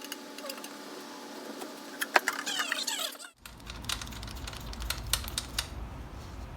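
Light metallic clicks and clinks of tools and parts being handled while working on the motorcycle, with a rattling cluster a little past two seconds in. A steady hum runs under the first half and a low rumble under the second.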